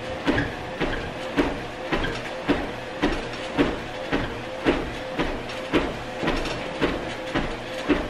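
Best Choice Products 800W folding electric treadmill running with a steady tone underneath while someone walks on it. Footfalls thump on the belt about twice a second, and the machine is a little squeaky.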